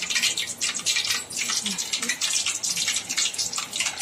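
Hot oil sizzling and crackling steadily as strands of carrot-and-potato kurkure dough, piped in from a plastic packet, deep-fry in it.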